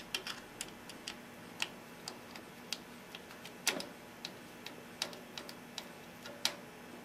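Irregular sharp clicks and ticks of a Phillips screwdriver turning a screw that fastens a reflector bracket to a wire basket, with a few louder knocks among them.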